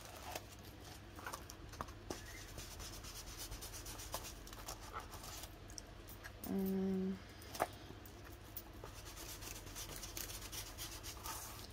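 Faint scratching, rubbing and light tapping of hands working on paper over the cardboard packaging, over a steady low hum. About halfway through, one short, steady hum-like tone of about half a second stands out.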